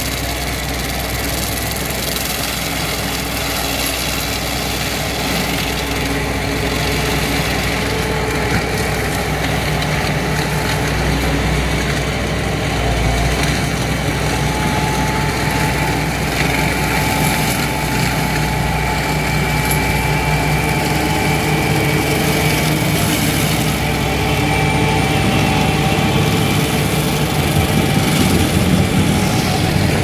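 Diesel engine of a New Holland tracked excavator running steadily under load while the hydraulic mulching head on its boom grinds into the ground. The noise grows slightly louder near the end.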